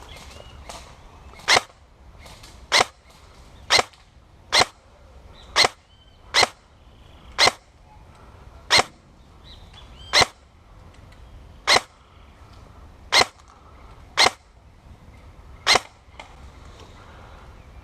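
An airsoft gun firing single shots, thirteen sharp cracks spaced roughly a second apart at an uneven pace.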